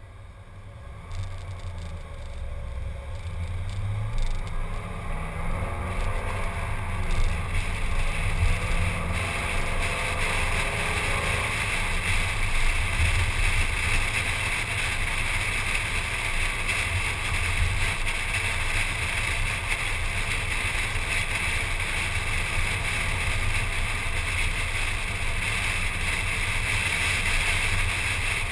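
Car pulling away from a traffic light and speeding up, picked up by a camera on the hood: engine and road noise grow louder over the first several seconds, then settle into a steady rush of wind and tyre noise at cruising speed.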